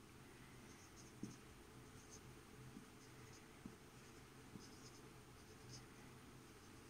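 Faint scratching and light taps of a marker pen writing on a whiteboard, in short irregular strokes.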